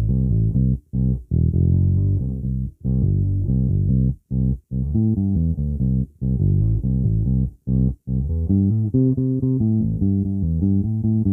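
Fender Player Series Precision Bass played through a Marshall MB60 bass amp: a riff of plucked notes changing several times a second, with a dark, deep tone and a few brief stops between phrases.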